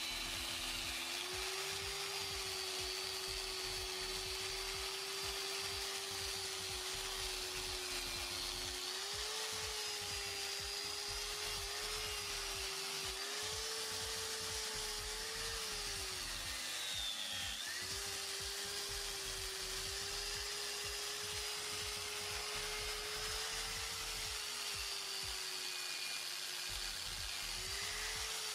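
Electric angle grinder with a wire wheel brush running steadily while it scrubs rust and dirt off a brake caliper, the wire on metal adding a gritty hiss over the motor's whine. The motor pitch wavers as the brush is pressed on and lifted, dipping briefly about two-thirds of the way through before recovering.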